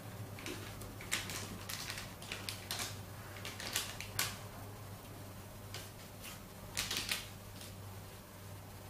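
A Siamese kitten scrambles through a fabric play tunnel and against a cardboard box, making scattered short rustles and scratches in several clusters, the loudest about four seconds in and again near seven seconds. A steady low hum runs underneath.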